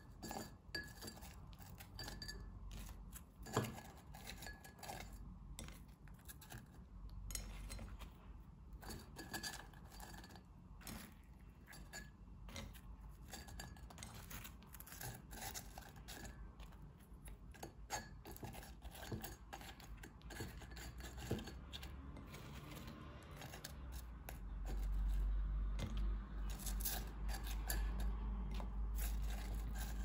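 Pan-fried dumplings being placed one by one into a glazed ceramic pot, with many small clicks and clinks of fingers, nails and food against the pot. In the last few seconds a low rumble comes in under the clicks.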